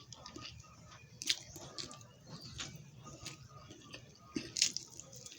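A person chewing and eating close to the microphone: wet mouth smacks and irregular sharp clicks, the loudest about a second in and again near the end.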